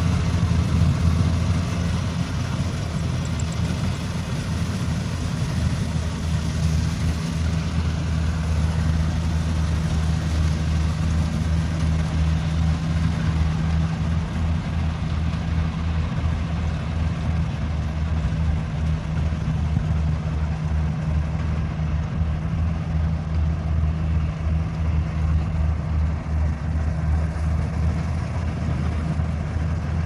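Rice combine harvester's engine running at a steady low drone while it cuts and threshes rice.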